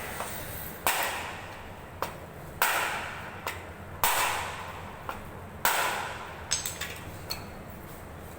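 Hammer blows on a jammed industrial vacuum cleaner motor, struck to knock it open. Sharp strikes come about once a second, each with a short fading ring, then a few lighter quick taps near the end.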